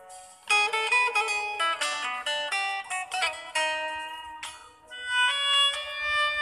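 Instrumental background music: a plucked-string melody of quick separate notes, with longer held notes coming in about five seconds in.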